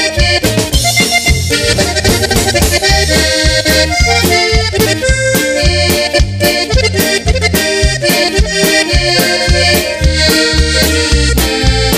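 Norteño band music led by accordion over a steady, even beat.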